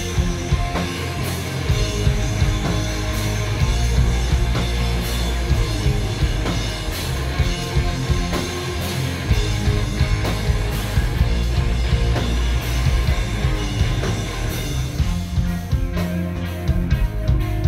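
Live rock band playing loud: distorted electric guitars over a drum kit with frequent cymbal crashes, no vocals.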